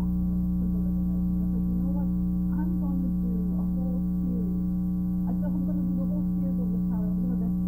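Steady electrical hum on the recording, a low drone with a ladder of evenly spaced overtones above it. A woman's conversational speech is only faintly audible beneath it.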